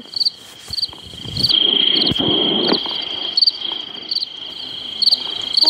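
Looped cricket night ambience from a video game: short high chirps repeating about every two-thirds of a second over a steady high trill. A louder rush of noise sits under it for about a second and a half, starting about a second and a half in.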